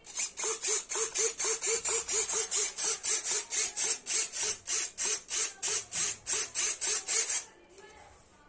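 Rapid, rhythmic scraping or rubbing strokes, about three to four a second, each with a hiss and a short squeak. They stop abruptly about a second before the end.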